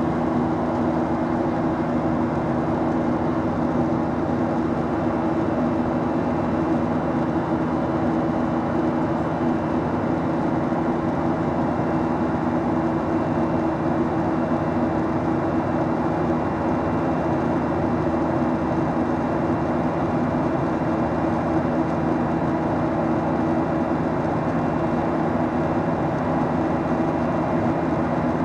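Steady cabin noise of a Boeing 737-800 in flight: the rush of its CFM56-7B turbofans and the airflow, with a few steady low hums running through it.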